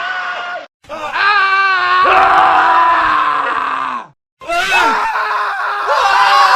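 Men screaming in a montage: three long, drawn-out screams one after another, separated by two short silent cuts. The middle scream wavers in pitch.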